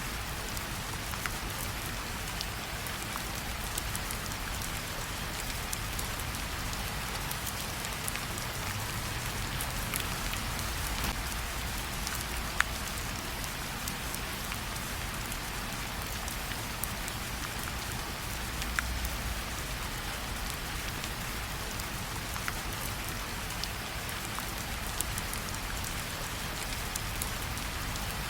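Steady rain falling, with scattered sharper ticks of individual drops; one tick stands out a little louder about twelve seconds in.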